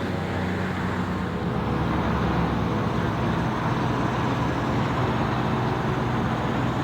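Steady motor-vehicle noise: an engine running evenly with a low hum under a wash of road or traffic noise.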